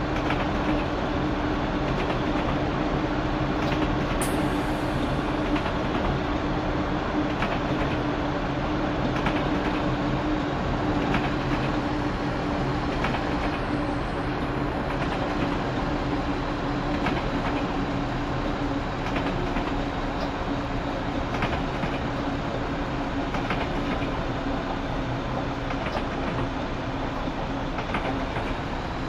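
Class 172 Turbostar diesel multiple unit running along the line: a steady diesel engine note over the rumble of the wheels, with light irregular clicks over the rail joints.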